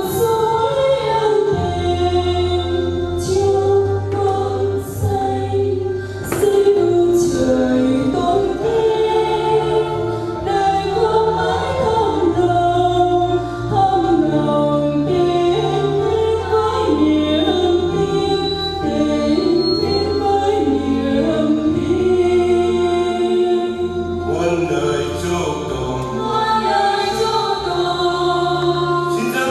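Choir singing a church hymn, with held notes over a steady instrumental bass line.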